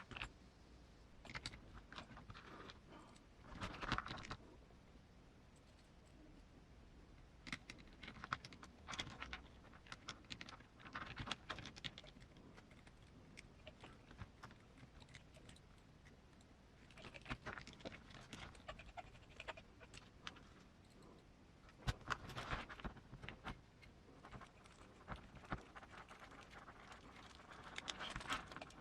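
Small clicks and taps of hands and tools handling metal parts while an outrunner motor and its pinion are fitted to an RC crawler. The clicks come in several short clusters with quiet stretches between.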